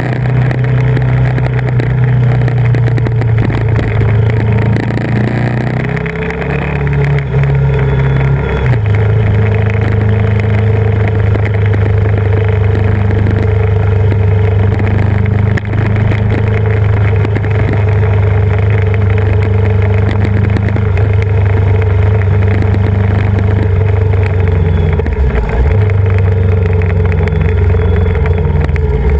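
Yamaha VMAX 1700's V4 engine running under way on a mountain road, heard from a camera on the bike, with steady engine pitch that shifts about six and nine seconds in and dips briefly about 26 seconds in.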